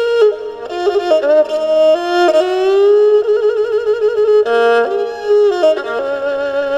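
Two-string bowed fiddle playing a slow traditional Khmer Surin melody with wavering vibrato, over backing instruments holding chords, as the instrumental introduction before the singing begins.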